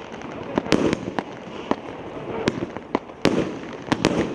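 A consumer fireworks battery (cake), the 'Golden Fleece', firing: sharp bangs of bursting shots at irregular intervals, roughly one or two a second, over a continuous crackling noise.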